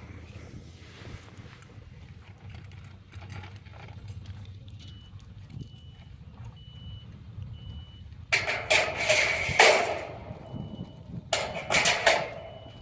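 Two loud bouts of metal clattering, like loose steel hardware being rattled and handled, over a steady low machine hum; a thin high beep sounds on and off.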